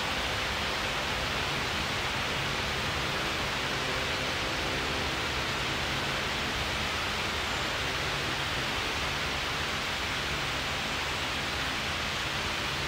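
Wall-mounted fan running: a steady rushing noise with a faint low hum underneath.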